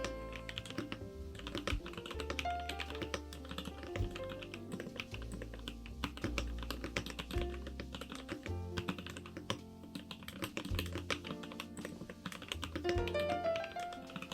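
Continuous rapid typing on a KBDFans Tofu65 mechanical keyboard with Kailh Icecream switches: a dense run of keystroke clicks, over background music with a bass line and melody.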